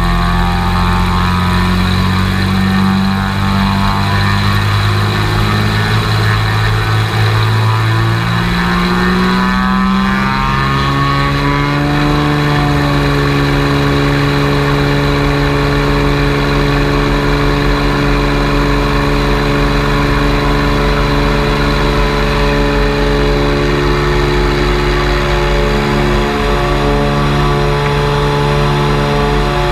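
Cessna 210L Centurion II's six-cylinder engine and propeller running loudly; about ten seconds in the pitch rises and then holds steady at high power, as in a short-field takeoff.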